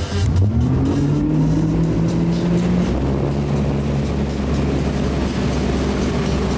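Motorboat engine throttling up to pull a wakeboarder out of the water, its pitch rising over the first second or so and then holding steady at speed, over a steady rush of water.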